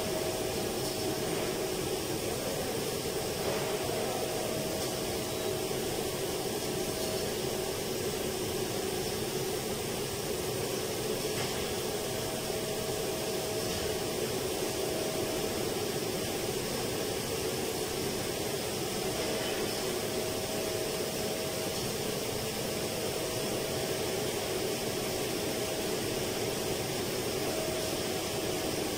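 Air-conditioning indoor unit running steadily: an even rush of air with a faint steady tone in it.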